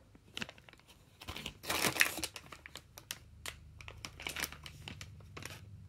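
Clear plastic packaging bag crinkling and rustling as it is handled, in irregular crackles, loudest about two seconds in.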